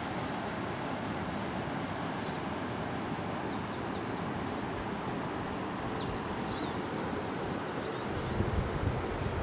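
Small birds chirping now and then over a steady rushing background, with wind buffeting the microphone starting about a second before the end.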